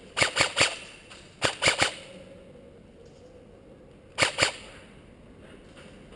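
Airsoft M4-style electric rifle (AEP) firing in semi-auto: three quick groups of sharp shots, three, then three, then two about two and a half seconds later.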